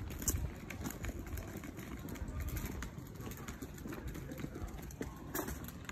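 Pram and kick-scooter wheels rolling over brick paving: a steady low rumble with scattered small clicks and rattles.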